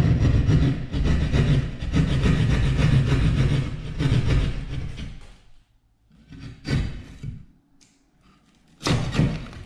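Hand drywall saw cutting through gypsum drywall in quick back-and-forth strokes, stopping about five seconds in. Then two sharp knocks a couple of seconds apart as the cut-out square is pushed through the wall.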